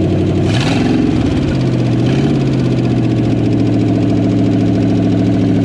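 1963.5 Ford Galaxie 500's 390 FE V8 engine running. About half a second in the revs rise with a short rush of noise, and it then holds a steady, faster idle.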